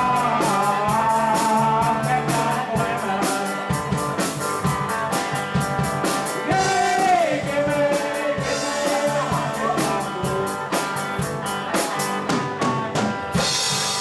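Live rock band playing, the drum kit keeping a steady beat under a bending lead melody line. A cymbal crash rings out near the end.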